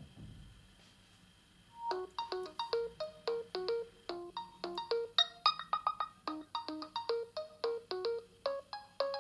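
OPPO A91 smartphone ringtone playing: a quick, bouncy melody of short notes that die away fast, starting about two seconds in. A soft low thump comes at the very start, before the tone begins.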